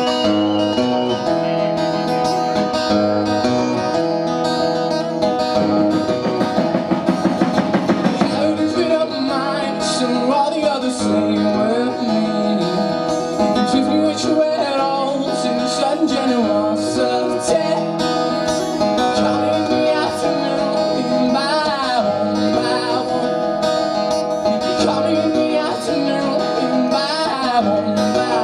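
Live acoustic guitar being strummed and picked while a man sings over it.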